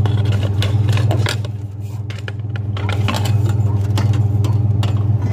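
Pickup truck engine idling, a steady low hum, with scattered metallic clicks and rattles over it.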